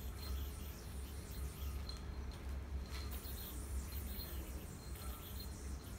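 Faint room tone: a steady low hum with scattered short, high chirps and a soft knock about three seconds in.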